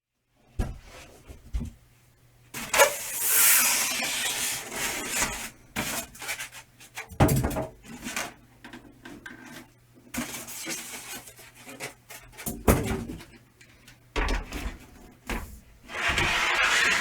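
A mid-tower PC case being lifted out of its cardboard box and packing: rustling and scraping of packing material, with several knocks and thumps.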